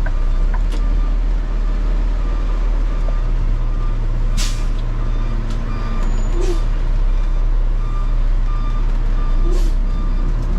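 Garbage truck's backup alarm beeping repeatedly over the steady running of its diesel engine, with three short hisses of air.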